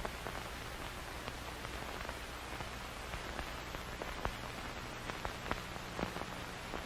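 Steady faint hiss with a low hum and scattered light ticks.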